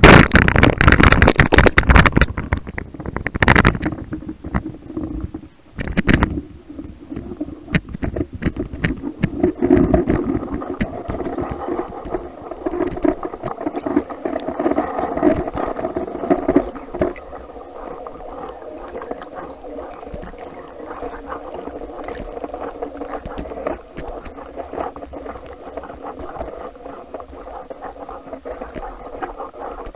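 Underwater spearfishing sounds: a speargun fires with a loud sudden thump at the start, followed by sharp knocks and a stretch of rumbling and scraping as the speared pike thrashes against the shaft and gun. From about halfway on the noise settles into a steadier muffled rumble of water.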